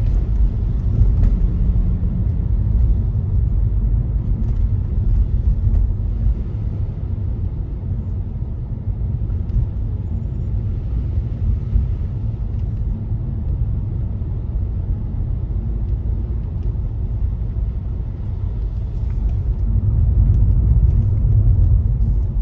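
Steady low rumble of a car being driven, engine and road noise heard from inside the cabin, swelling a little near the end.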